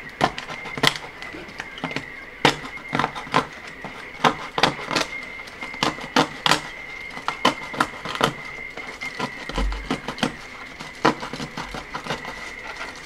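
Knife blade cutting through the thin printed-plastic hair strands of a 3D-printed hairy lion: an irregular run of sharp clicks and snaps, several a second, as the strands break. A steady high-pitched tone runs underneath.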